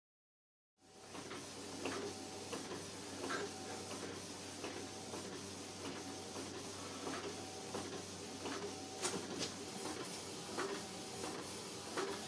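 About a second of dead silence, then faint room sound with a steady low hum and many small irregular clicks and scratches, with the odd short squeak.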